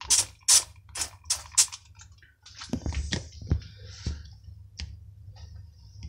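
A trigger spray bottle squirting cleaner onto a washing machine's rubber door seal, five quick hissing sprays in about a second and a half. Afterwards come a few low scuffs and knocks, with a single click near the end.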